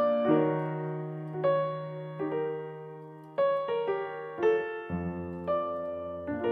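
Background music: a slow piano melody over long held bass notes.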